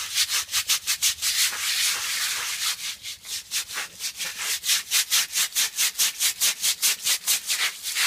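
Stiff-bristled hand brush scrubbing a cola-soaked oil stain on a concrete driveway. It makes quick, rasping back-and-forth strokes, about five or six a second, which blur together at first and separate into distinct strokes after a few seconds.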